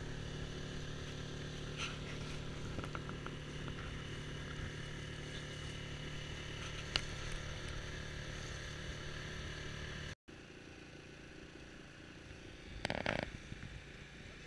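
Outboard motor of a small open wooden boat running steadily under way, with water rushing along the hull. About ten seconds in the sound cuts to a quieter run, and a brief louder sound comes near the end.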